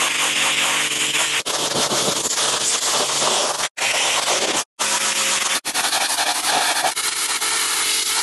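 High-pressure washer jetting water against the underwater hull of a hauled-out sailboat: a loud, steady hiss over the low hum of the washer's pump. It cuts out abruptly a couple of times near the middle.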